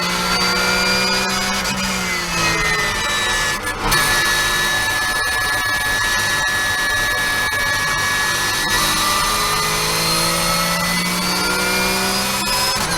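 Porsche 991.1 Cup car's flat-six engine under hard acceleration, its pitch climbing and then breaking sharply at a gear change just before four seconds in, then climbing again later. A steady high whine runs through the middle stretch.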